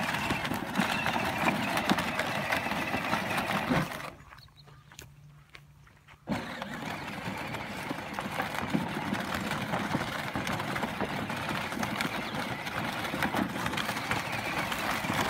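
Child's battery-powered ride-on toy quad driving over dry dirt and brush, its plastic wheels crunching and rattling with an uneven bumping. It goes quiet for about two seconds around a third of the way in, then starts again.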